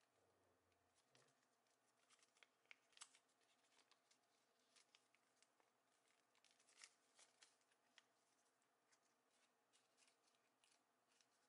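Origami paper being handled and creased by hand, heard faintly: small crisp crinkles and ticks at an irregular pace.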